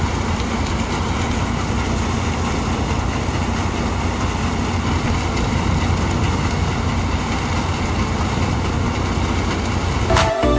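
Mahindra 475 DI tractor's four-cylinder diesel engine running steadily under load, driving a paddy thresher as rice straw is fed through it; a constant mechanical drone.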